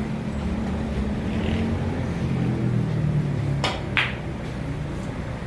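Two sharp clicks of pool balls about a third of a second apart, a little past halfway, over a steady low hum.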